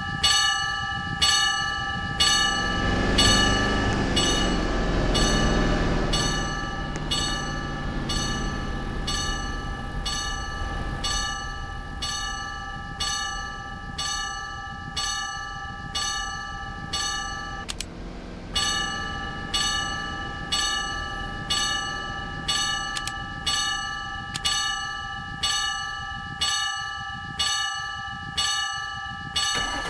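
Level-crossing warning bell ringing with even, repeated strikes, about one and a half to two a second. A passing train rumbles underneath, loudest a few seconds in, then fades away.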